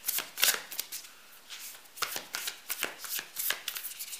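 An oracle card deck being shuffled by hand: a quick, irregular run of card flicks and slaps, thinning briefly about a second in.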